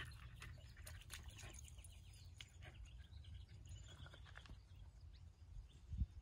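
Faint outdoor ambience: scattered bird chirps over a steady low rumble of wind on the microphone, with one brief low bump near the end.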